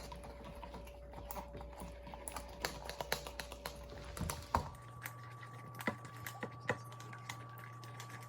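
Slime being stirred in a cup: a utensil irregularly clicking and tapping against the cup as glue and activator are mixed.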